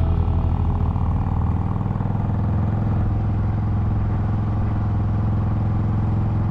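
Motorcycle engine running steadily at cruising speed, with a constant low drone and road and wind noise.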